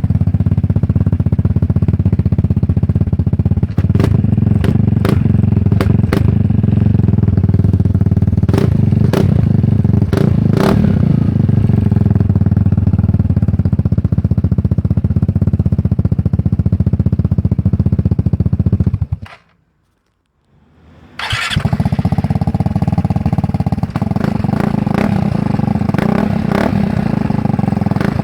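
Vespa GTS 300's single-cylinder four-stroke engine running steadily through a cheap aftermarket exhaust, with a deep, even exhaust note. About nineteen seconds in the sound cuts out for a second or so, then the engine starts again with a short whirr and settles back to a steady run.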